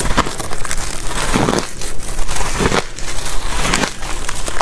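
Hard ice being bitten and chewed, a dense run of cracking crunches.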